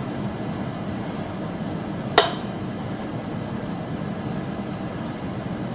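Steady background hum in a lab room, with one sharp click about two seconds in as the microscope is handled.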